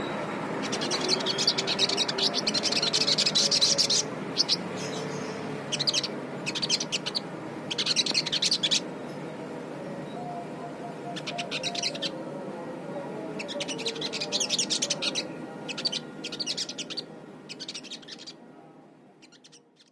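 Crested jay (sogon) giving repeated bouts of rapid, rattling high-pitched chatter, about ten bouts lasting from a few tenths of a second to three seconds each, separated by short pauses, over a steady low background noise; the sound fades out near the end.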